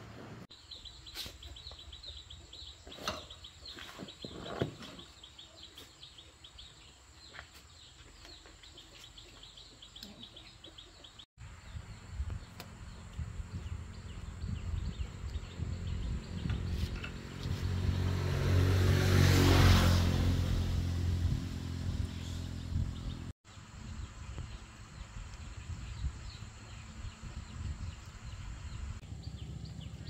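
Birds chirping over quiet rural background, then an engine's low drone that swells to a loud peak with a rush of noise about two-thirds of the way in and then eases off.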